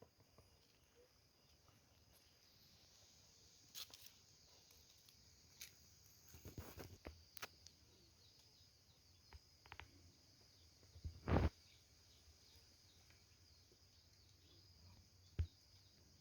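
Insects chirring steadily at a high pitch in the countryside, with a few scattered knocks, the loudest about eleven seconds in.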